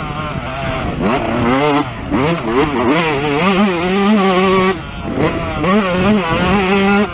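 Yamaha YZ125's 125 cc single-cylinder two-stroke engine at full throttle on a motocross track, its pitch repeatedly climbing and falling as it revs through the gears. The throttle closes briefly about two seconds in and again about five seconds in, then it winds back up.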